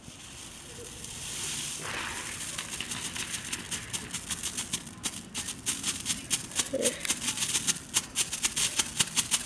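Consumer ground firework fountain hissing as it sprays sparks, then crackling with rapid, irregular pops that grow denser and louder from about two seconds in.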